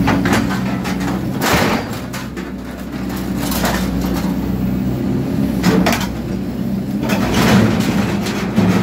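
Excavator diesel engine running steadily under hydraulic load as its shear attachment chops up steel roo bars, with several sharp metallic crunches and cracks as the jaws bite and scrap clatters.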